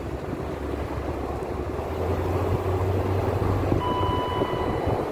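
Wind buffeting the microphone over a steady low engine hum from a vehicle. A brief, steady high-pitched tone sounds a little after the middle.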